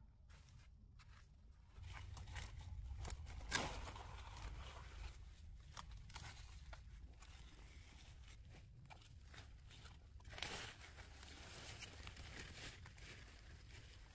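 Faint rustling and handling noises with scattered clicks; they grow busier about two seconds in, with a sharper knock a second and a half later and another burst near the end.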